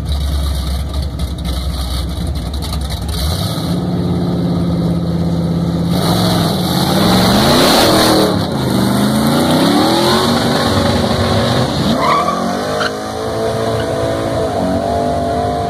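Drag-strip run: a Chevrolet Chevelle's engine rumbles at the line, is held at steady revs, then revs up and down as the car launches and pulls away. About twelve seconds in, a second car's engine revs up and holds high, steady revs through a burnout, with tyre noise.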